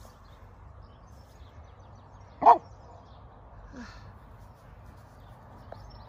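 A dog barks once, loudly, about two and a half seconds in, followed about a second later by a fainter, lower bark.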